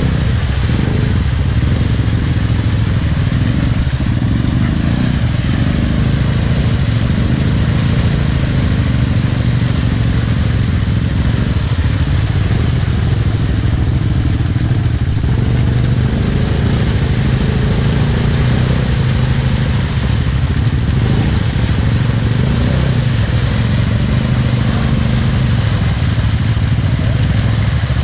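ATV engine running steadily, its pitch rising and falling a little with the throttle.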